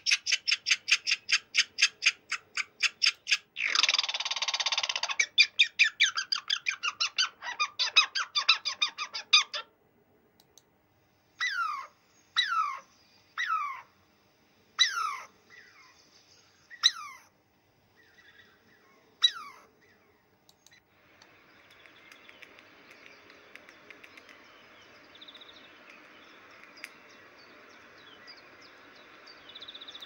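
High-pitched animal calls: a fast run of chirps, about four a second, for the first ten seconds. Then about eight single calls that fall steeply in pitch, roughly one a second, followed by a faint, steady rustling noise.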